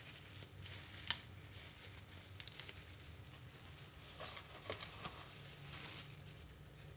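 Soft rustling and crinkling of a banana leaf and a thin plastic glove as the leaf is folded into a cone around sticky rice, with one sharp click about a second in and a few lighter taps later.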